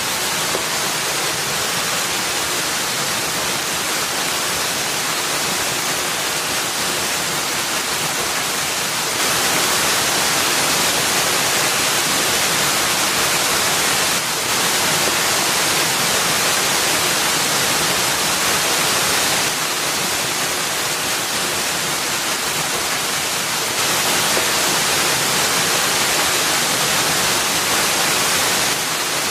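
Waterfall: water falling onto rock and into a pool, a steady rushing hiss whose loudness steps slightly up and down every few seconds.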